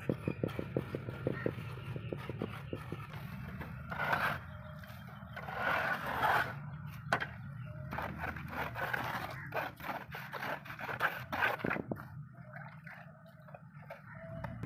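Steel trowel scraping and spreading a gritty gravel-and-cement mix in a mold, in a series of rasping strokes. The first few seconds hold a run of quick light taps, about five a second.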